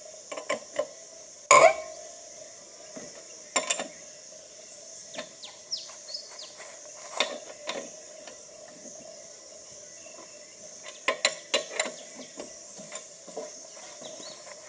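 Metal clanks and clicks of a wheel wrench working the lug nuts loose, irregular, with one loud clank about a second and a half in and a quick run of clicks near the end. Steady insect chirring underneath.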